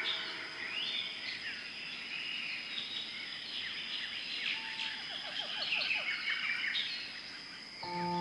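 Tropical forest birds chirping and whistling, many calls overlapping, over a steady high insect drone. Near the end a sustained singing-bowl-like music tone starts suddenly.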